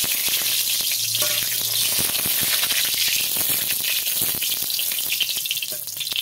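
Dried red chillies sizzling in hot vegetable oil in a kadai: a steady high hiss with many small crackling pops, easing slightly near the end.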